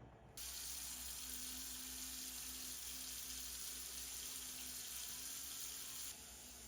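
Water running steadily from a tap, turned on abruptly about half a second in, its hiss dropping somewhat near the end.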